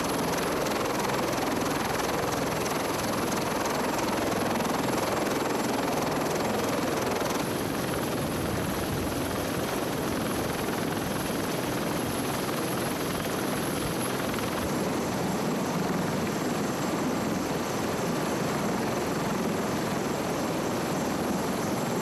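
CH-46 Sea Knight tandem-rotor helicopter running on the ground with both rotors turning: a steady rush of turbine and rotor-blade noise.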